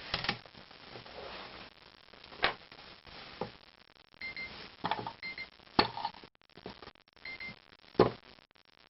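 Scattered sharp clicks and knocks, with three short high electronic beeps between them.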